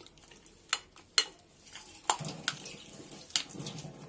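A hand mixing a wet batter of mashed boiled potato, beaten egg and salt in a glass bowl: a squelching sound that becomes continuous about two seconds in, with a few sharp clicks against the glass.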